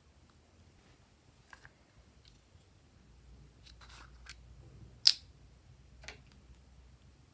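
Small plastic pot being handled with a few light clicks, then its snap lid pops open with one sharp click about five seconds in.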